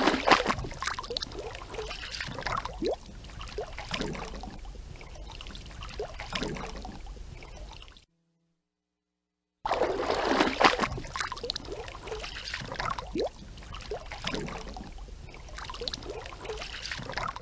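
A fish splashing in water: a loud splash, then smaller splashes and short rising plops that fade away over about eight seconds. After a brief silence the same splashing starts again.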